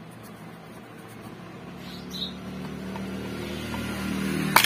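Handling of a small plastic LED power-supply case, then a few sharp plastic clicks near the end as the case is snapped open. A steady low hum grows slowly louder underneath.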